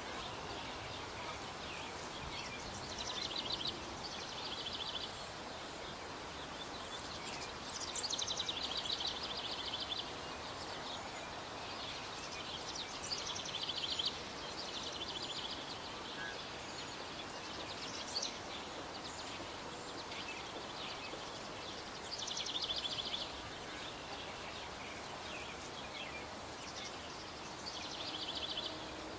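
A small songbird singing short, high, trilling phrases, one every few seconds, over a steady background hiss.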